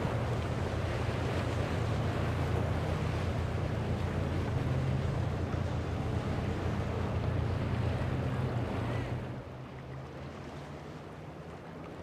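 A large charter boat's engines running with a steady low hum under the rush of its wake and wind on the microphone. About nine seconds in the sound drops quieter, leaving a lower hum from a smaller center-console boat's outboard motors.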